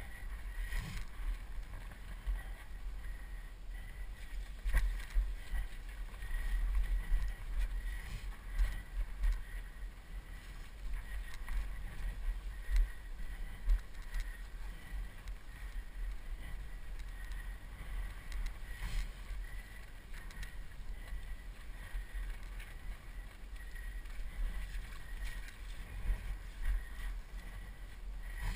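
A mountain bike ridden over a rough, stony trail, heard from a helmet-mounted camera: wind buffets the microphone throughout, with scattered knocks and rattles as the bike hits rocks.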